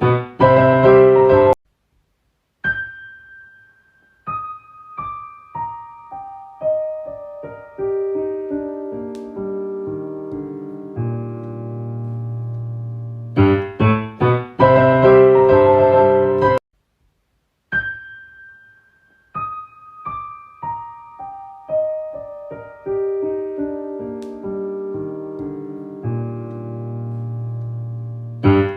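Piano music: a loud, quick flurry of chords, a short break, then single notes stepping slowly downward; the same phrase repeats about halfway through.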